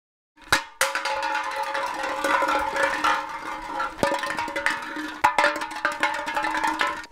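Music with busy percussion strikes over a few held tones, starting about half a second in.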